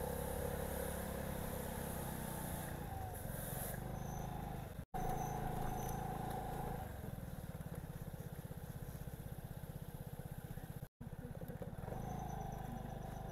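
Vespa Primavera scooter engine running at low speed while the scooter creeps along, with a steady low pulsing note. The sound cuts out completely twice, briefly.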